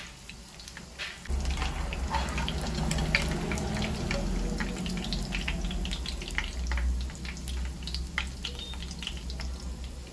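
Ramen-noodle-crusted chicken tenders shallow-frying in hot oil in a nonstick pan: a steady sizzle with many scattered crackles and pops. A low steady rumble comes in about a second in.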